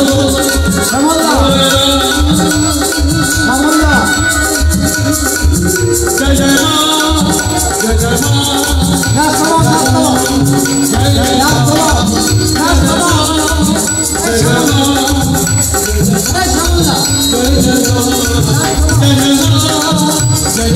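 A man sings a Bengali devotional song through a microphone and loudspeakers, with a steady drum beat and high jingling percussion keeping time.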